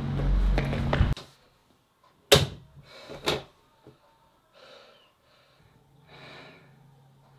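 A loud, low booming drone cuts off suddenly about a second in. Then comes a hard thud of a body hitting a wooden door, a lighter knock against it a second later, and two faint heavy breaths.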